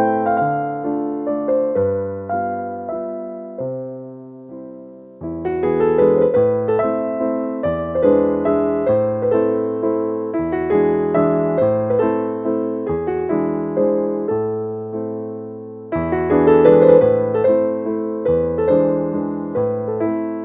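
Background instrumental music: struck notes in chords and a melody, each note fading after it is played. It softens about four seconds in and picks up again about a second later.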